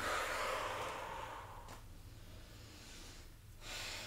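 A woman breathing out in a long exhale that fades over about a second and a half as she lowers into a wide-legged forward fold, then a shorter breath near the end.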